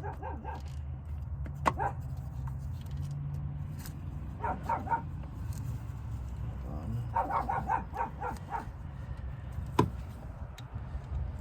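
A dog barking in short runs of quick barks, twice, over a steady low hum, with a couple of sharp metallic clicks.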